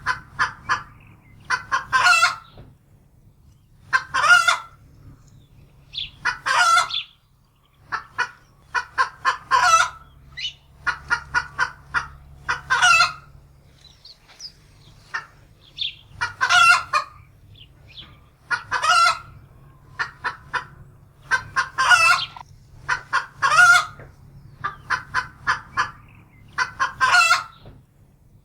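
Domestic hen's alarm cackle, from a hen frightened by a wildcat: runs of quick clucks, each leading into a longer drawn-out call, repeating about every two seconds.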